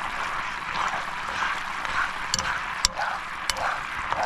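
Coconut cream and Vegemite sauce bubbling in a frying pan on a portable gas stove, a steady frothy simmer. A metal spoon stirring it clinks lightly against the pan three times around the middle.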